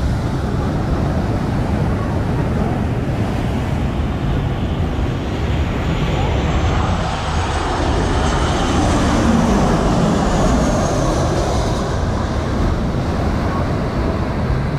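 Boeing 737 jet airliner on final approach, its engine whine and rumble building as it comes in low and peaking about nine to ten seconds in, over steady wind noise and surf.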